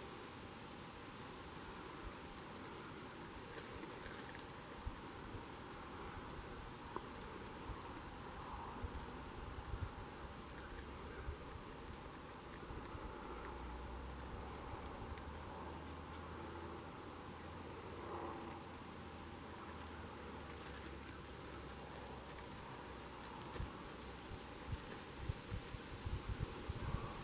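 Steady chorus of singing insects such as crickets: a fast pulsing high trill with a second steady, higher buzz above it.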